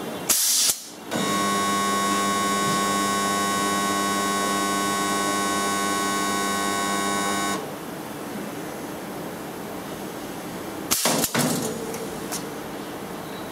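Pneumatic rod butt welding machine working a weld cycle. A short burst of compressed air hisses, then the welding transformer hums steadily for about six seconds while the weld current flows and cuts off sharply. Two more short air hisses follow near the end as the pneumatics let go.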